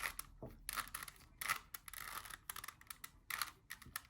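Rubik's Cube layers being twisted by hand, in repeated bursts of quick plastic clicking and rasping turns.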